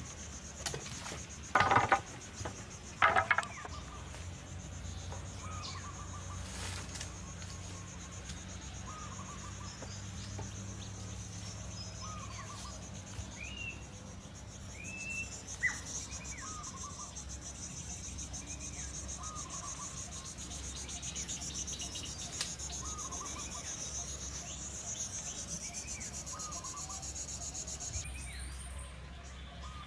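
Insects buzzing in a steady, high, pulsing chorus that cuts off suddenly near the end, with a bird repeating a short rising call every second or two. About two and three seconds in come a few loud knocks of bamboo poles being handled.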